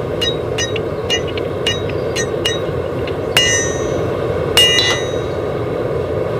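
Hammer blows on a red-hot steel sword blade over an anvil, each with a bright metallic ring: a quick run of lighter blows, about three a second, then two heavier strikes that ring on longer, about three and a half and four and a half seconds in. A steady rushing noise runs underneath.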